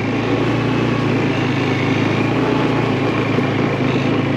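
ATV engine running at a steady, even speed while being ridden.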